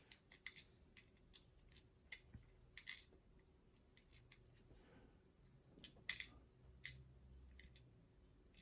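Faint, scattered light clicks and taps of small metal lock pins being handled and set down on a parts tray, heard over quiet room hum.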